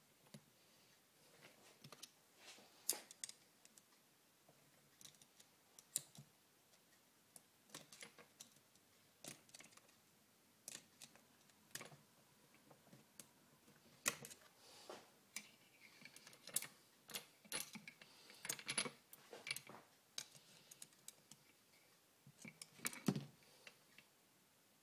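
Irregular small metal clicks, taps and clinks from steel parts being handled and fitted into an early Harley-Davidson Shovelhead four-speed gearbox case, more frequent in the second half.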